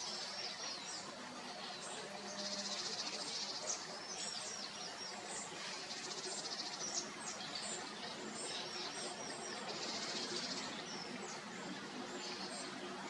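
A songbird singing the same short phrase over and over, a high buzzy trill followed by a run of quick chirps, repeating every three to four seconds over steady outdoor background noise.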